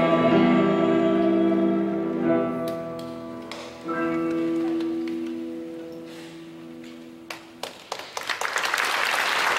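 Mixed choir holding the closing chords of a song, which are re-struck twice and fade away. Scattered claps follow, and then applause breaks out near the end.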